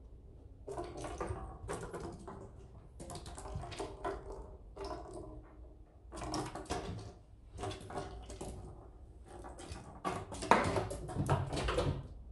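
Pine cone clattering and skittering over wooden deck boards as kittens bat it about, in short rattling bursts about once a second, loudest near the end.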